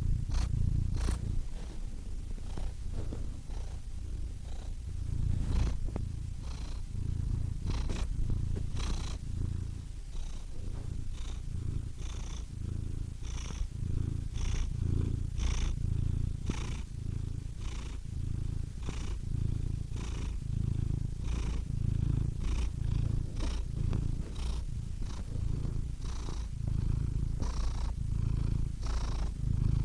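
Domestic cat purring steadily, the low rumble swelling and fading about every second and a half, with faint light clicks throughout.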